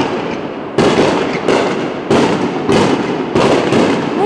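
Aerial fireworks bursting in a rapid series, a sharp bang about every half second to a second, each trailing off into crackle.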